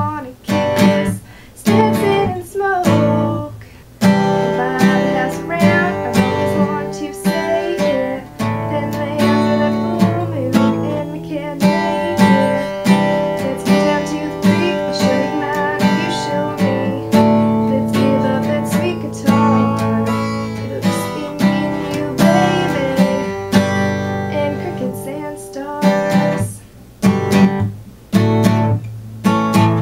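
Steel-string acoustic guitar strummed in chords by a beginner player, a steady strum rhythm with short breaks at chord changes near the start and near the end.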